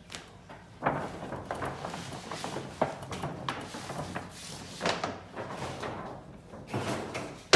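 A large, stiff paper shopping bag rustling and crinkling in irregular bursts as a cardboard gift box is pulled out of it.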